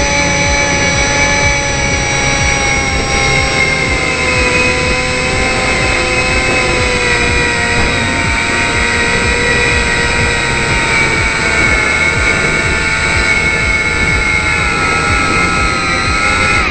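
Depron foam RC plane's electric motor and propeller whining steadily, picked up by a camera on board, with wind rushing over the microphone. The pitch falls slowly over the whole stretch.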